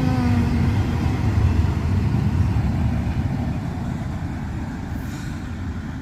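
Low, steady vehicle rumble that slowly fades toward the end.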